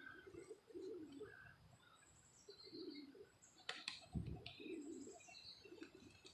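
A flock of white birds giving faint, low, repeated cooing calls, with thin higher chirps scattered through and two sharp clicks a little past halfway.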